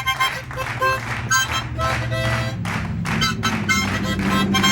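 Harmonica played in quick, choppy puffs of chords, several notes a second. A steady low hum runs underneath and steps up in pitch about halfway through.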